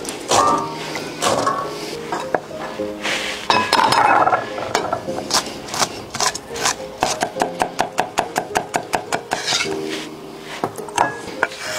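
Cleaver chopping pickled chillies on a thick wooden chopping block: sharp knocks, scattered at first, then a fast even run of about six a second in the second half, over light background music.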